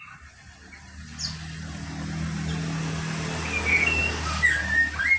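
A lesser racket-tailed drongo gives short whistled notes in its natural wild-type call over the last couple of seconds, ending with a rising whistle. Under it, the low hum of a passing motor vehicle swells and then fades.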